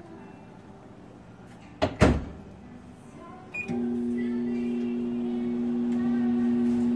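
Microwave oven door shut with two sharp knocks about two seconds in, a short beep about a second and a half later, then the microwave starting and running with a steady low hum.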